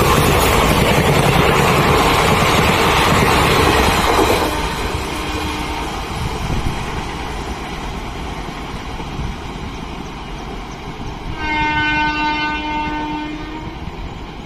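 Passenger train of ICF coaches rushing past close by, wheels on rail, the noise cutting off about four seconds in as the last coach clears. Near the end an approaching Indian Railways electric locomotive sounds its horn in one steady blast of about two seconds.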